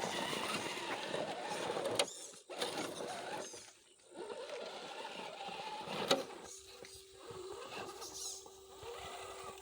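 Electric motor and gear drivetrain of an RC rock crawler whining as it crawls, its pitch wavering with the throttle and briefly stopping a couple of times. Two sharp knocks, about two and six seconds in.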